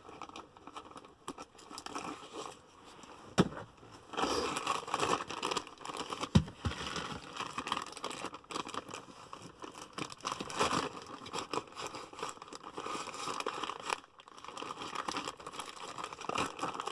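Package being opened by hand: packaging crinkling and tearing in irregular rustles, with a few sharp clicks along the way.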